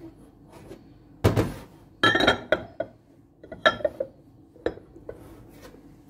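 A cut-glass bowl knocking and clinking against a stainless-steel surface as it is handled, with several sharp knocks, some leaving a brief glassy ring.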